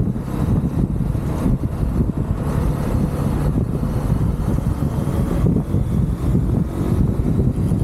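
UM Renegade Commando 125 motorcycle engine running steadily while riding, with wind rushing over a handlebar-mounted microphone.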